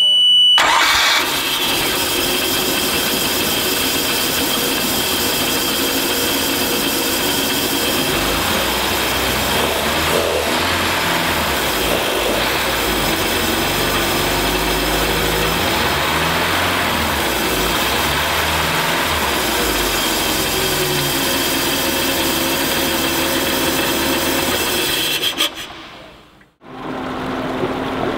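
MerCruiser 3.0 L four-cylinder sterndrive engine in an open engine bay, starting right after a short steady beep from the warning buzzer and then running steadily, revved a little in the middle, before it cuts off near the end.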